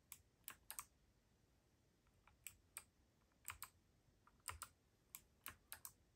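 Keys being typed on a Keydous NJ80-AP mechanical keyboard with Kailh BOX White switches: about fifteen sharp, irregularly spaced key clicks at a slow, uneven pace.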